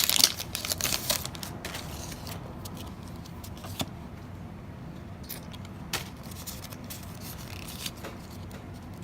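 A foil trading-card booster pack crinkling and tearing open in the first second or so, then a low steady background with a few sharp clicks as the cards are handled.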